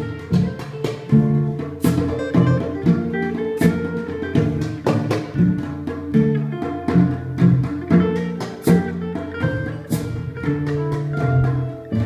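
Live acoustic trio: acoustic guitar, cello and hand drums struck with sticks playing together, the cello carrying a moving low line under the guitar, with sharp drum strikes throughout.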